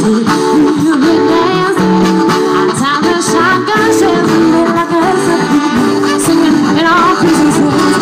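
Live band playing loud soul-rock, with saxophone, trumpet, electric guitars, bass and drums, and a singer's voice over the band.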